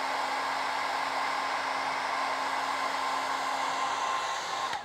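Hand-held hairdryer running steadily, blowing hot air onto heat shrink tubing over a soldered wire joint to shrink it. It is switched off near the end and its motor winds down.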